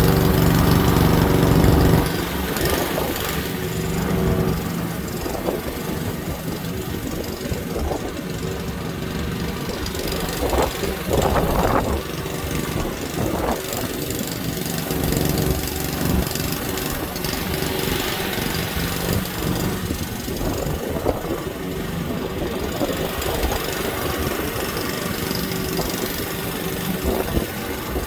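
Lawn mower engine running steadily, louder for the first two seconds and then settling to a slightly quieter, even hum.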